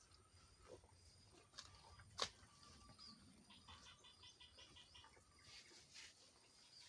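Near silence: faint outdoor ambience with scattered soft clicks, one sharper click about two seconds in, and faint high chirps, including a brief rapid chirping run in the middle. No cow moo.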